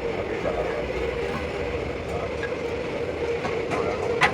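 Steady machine noise with a constant hum, and one sharp metallic knock just before the end.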